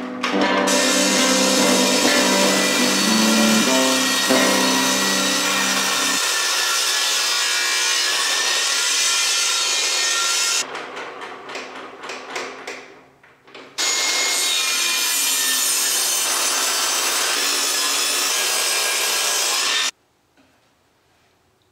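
Table saw ripping pine boards: the blade cutting through the wood with a loud, steady noise, a break of about three seconds just past the middle, then a second cut that cuts off suddenly near the end.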